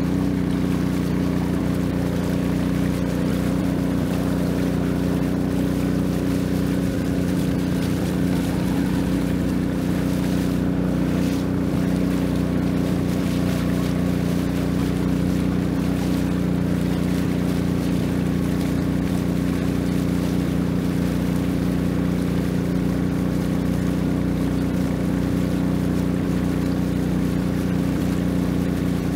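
Long-tail boat engine running at a steady speed, an even drone that holds its pitch throughout.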